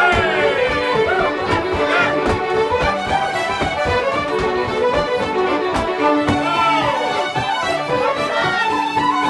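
Irish traditional dance music led by a fiddle, with a steady percussive beat.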